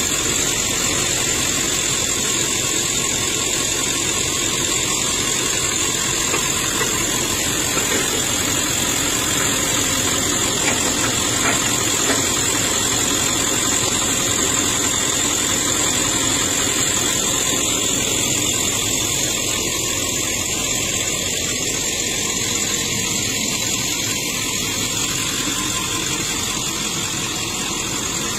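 Ford pickup truck engine idling steadily, with a constant hiss over it.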